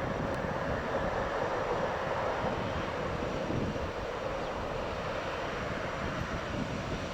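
Jet engines of a Boeing 787-9 Dreamliner under takeoff power, a steady distant rumble and roar as the airliner climbs away.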